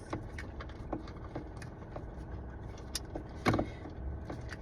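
Scattered metallic clicks and clinks of hand tools working the screws of a car's steering wheel, with a sharper knock about three and a half seconds in, over a steady low hum.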